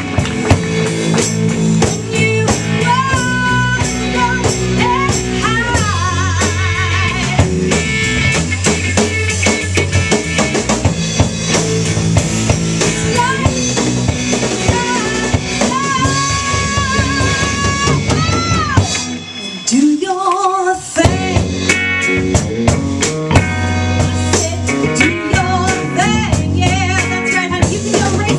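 Live band playing: a woman singing with a wavering, vibrato melody over electric guitar, low bass notes and a drum kit. About nineteen seconds in, the band stops for roughly two seconds while the voice carries on, then the band comes back in.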